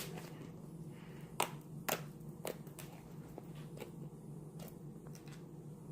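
Slime being handled, making about half a dozen scattered sharp clicks and pops over a steady low hum.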